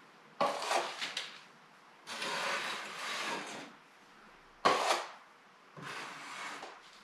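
Putty knife scraping wet joint compound: four scraping strokes of under a second to about a second and a half, with pauses between. The loudest stroke, a little past the middle, starts with a sharp clack.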